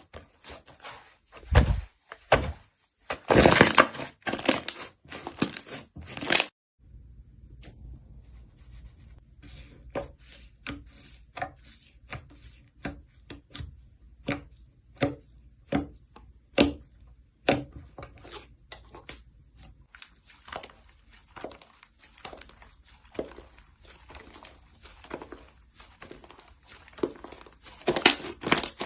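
Slime being squeezed and worked by hand, giving a quick run of crackles and sharp clicks. After a sudden cut about seven seconds in come sparser, separate sticky pops and clicks over a low hum.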